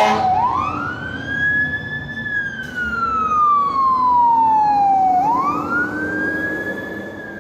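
Emergency vehicle's electronic siren on the wail setting. The pitch sweeps up quickly, falls slowly over about three seconds, then sweeps up again about five seconds in, growing fainter near the end.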